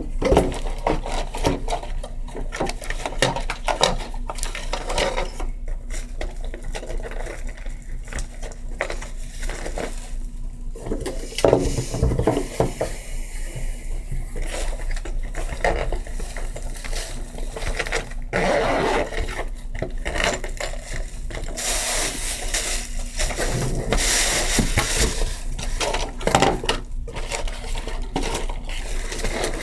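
Repeated small taps and clicks with stretches of scraping, from hands working with acrylic nail supplies and tools. The scraping is loudest for a few seconds about three quarters of the way through.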